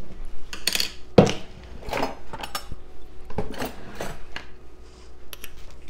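A metal spoon and a glass canning jar being handled on a kitchen counter: about eight separate short clinks and knocks, the sharpest a little over a second in.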